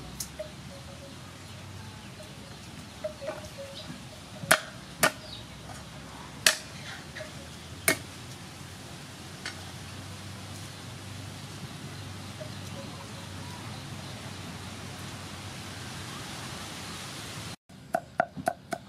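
Steady quiet outdoor background with a few sharp knocks as garlic is peeled and trimmed with a small knife over a wooden board. Near the end a cleaver starts chopping garlic on the wooden board in quick regular strikes.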